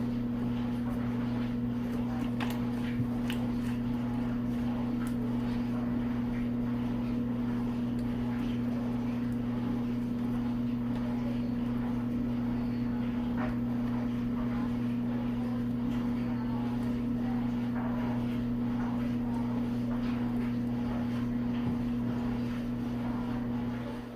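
Steady mechanical hum, like an electric appliance running, with faint clicks and taps over it; the hum stops near the end.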